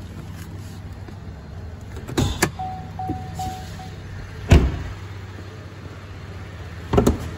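2016 Chevrolet Colorado idling with a steady low hum while its driver's door is opened with a few clicks, the door-open chime beeps four times, and the door is shut with a loud thump about halfway through. Another sharp thump comes near the end.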